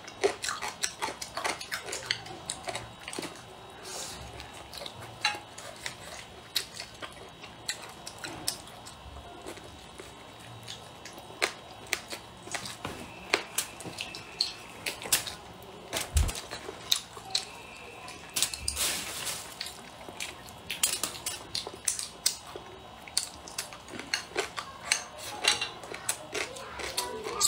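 Chopsticks clicking and scraping against bowls while eating, in many short, irregular taps, with one low bump about halfway through.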